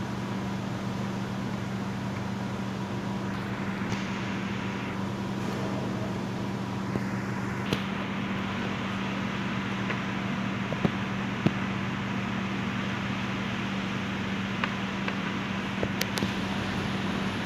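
Steady machine hum with an even hiss, and a few faint clicks.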